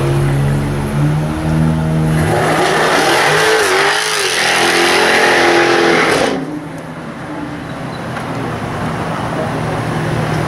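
Jaguar F-Type R's supercharged V8 revving hard. Its note climbs for about two seconds, then rises into a loud, noisy rush that lasts about four seconds and cuts off suddenly, after which the car runs on more quietly.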